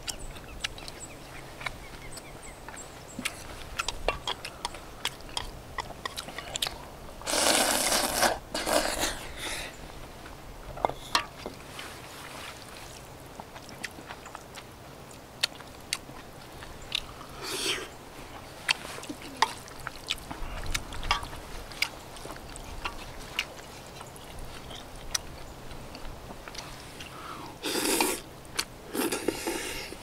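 Close-up eating sounds: chewing with many small wet clicks, broken by several louder slurps of noodles, two about a quarter of the way in and two near the end.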